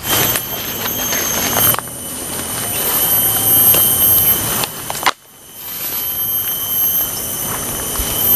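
Brushing and trampling through dense jungle undergrowth on foot, with a steady high-pitched insect drone running underneath, with a brief break a little after halfway.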